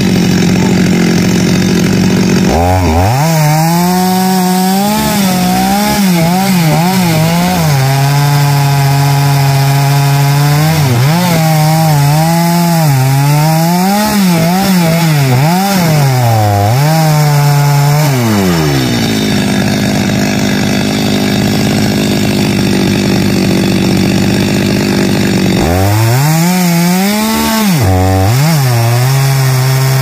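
Two-stroke chainsaw at full throttle sawing xà cừ (khaya) wood. It revs high and steady at first, then its note drops and wavers as the chain bites into the cut. It rises back to a steady high note when the bar comes free about 18 seconds in, and drops again as it starts another cut near the end.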